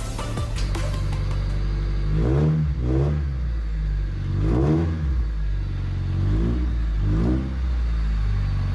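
Car engine idling and being revved in short blips, about five times, the pitch rising and falling with each blip.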